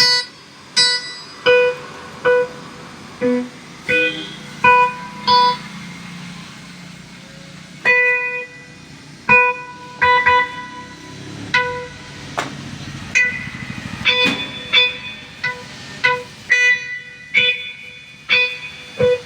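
Casio CT-X870IN electronic keyboard playing its guitar tone: single plucked notes struck one at a time at an uneven pace, mostly the same note repeated, each ringing briefly and fading.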